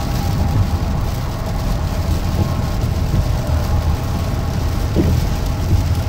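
Steady road and engine rumble inside a minivan at highway speed, with rain on the windshield and the wipers sweeping.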